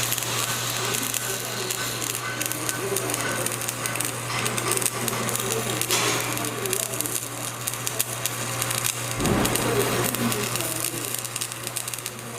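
Stick (shielded metal arc) welding arc crackling and sizzling steadily while a second pass is run on a flat-position fillet weld in 10 mm plate, over a steady low hum.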